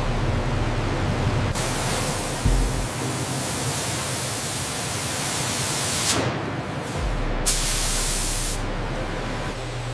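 A loud hissing like a spray or air jet, in two stretches: a long one starting a second and a half in and a short one near the end, over a low steady hum.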